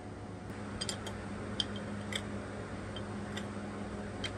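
Socket wrench clicking on engine bolts in a few short, irregular strokes, over a steady low hum.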